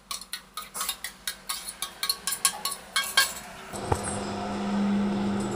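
Steel kitchenware clinking as chopped onion is tipped from a steel dish into a steel mixing bowl: a quick run of sharp clinks, several a second, that dies away after about three seconds. A steady low hum comes in about four seconds in.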